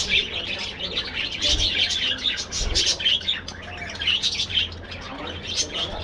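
A flock of budgerigars chirping and chattering, with many short calls overlapping one another.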